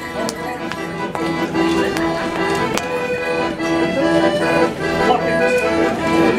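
Accordion playing a traditional Morris dance tune.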